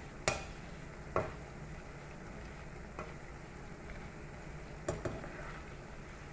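Food frying in hot oil in a pan, a steady sizzle, with a spatula knocking sharply against the pan five times, two of them close together near the end.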